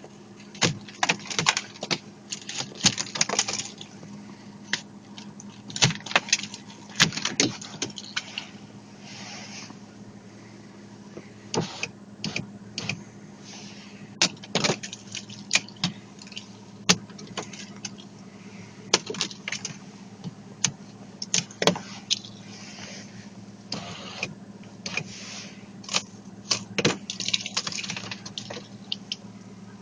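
Ice crust cracking and clinking in irregular clusters of sharp snaps, over the steady low hum of an idling car engine.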